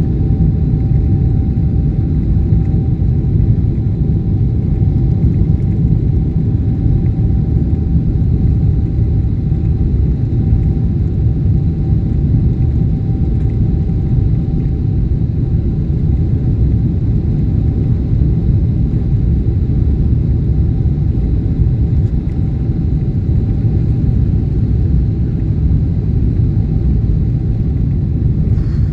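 Boeing 777 cabin noise on the ground: a loud, steady low rumble of the jet engines and wheels on the runway, with a thin steady whine above it, heard from inside the cabin.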